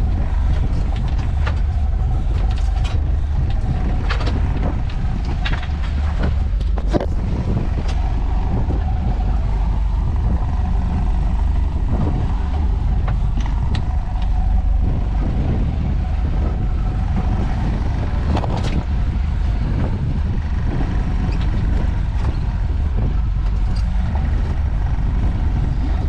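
Towboat's engine running steadily alongside, a constant low rumble mixed with wind and water, with a few short knocks.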